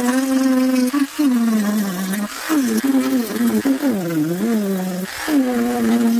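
Dremel rotary tool with a sanding drum grinding papier-mâché on a low speed setting, played back sped up. It gives a steady whine that dips in pitch and recovers several times.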